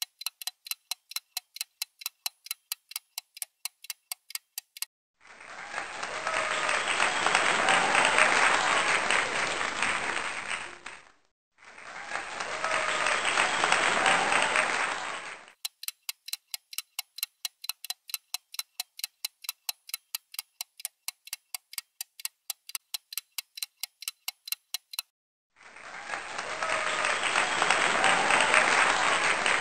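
Quiz countdown-timer sound effect, clock ticking at about three ticks a second, alternating with a crowd-applause sound effect that marks the answer reveal. Ticking for about five seconds, then applause in two stretches with a short break, ticking again for about nine seconds, then applause again near the end.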